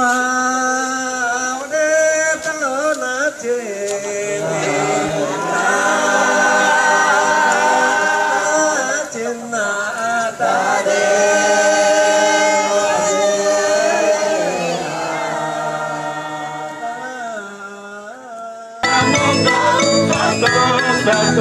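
Voices singing a slow Dayak Kenyah chant, long held notes that glide between pitches in layered parts, with a higher voice at the start and lower voices after. About nineteen seconds in the singing stops abruptly and instrumental music takes over.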